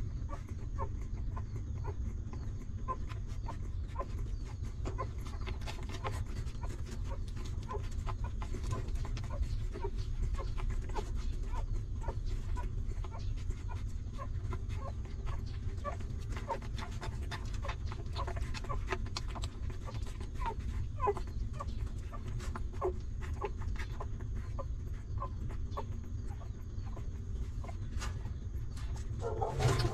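A litter of newborn puppies suckling at their mother: many small wet sucking clicks and brief faint squeaks, over a steady low hum.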